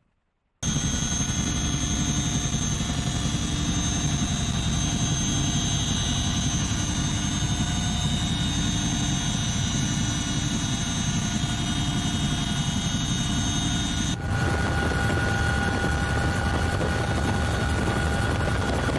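Steady drone of a CH-47 Chinook helicopter heard from inside its cabin in flight: the tandem rotors and twin turboshaft engines give a low rumble with high whining tones over it. It starts suddenly about half a second in, and the whine changes pitch abruptly about three-quarters of the way through.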